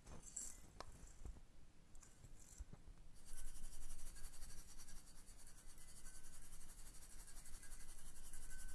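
Christmas decorations handled close to the microphone: a few light taps and clicks, then from about three seconds in a steady, fast, high-pitched jingling rustle.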